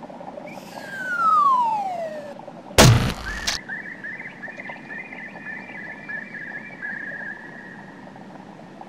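Cartoon sound effects: a descending falling whistle, then a loud thud as the falling bird lands on the hunter, followed by a thin, high wavering tone that fades away.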